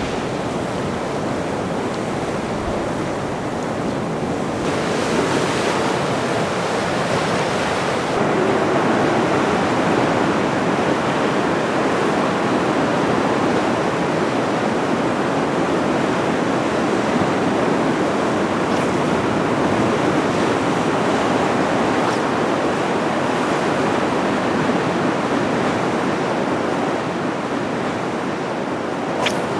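Heavy surf breaking and washing over a rocky shore: a steady rushing of rough sea.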